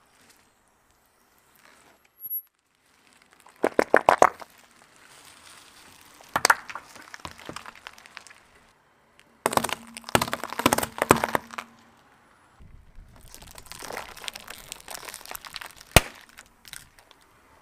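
Objects crushed under a slowly rolling car tyre, among them toothpaste tubes: several separate bouts of sharp crackling and crunching, with one single loud crack near the end.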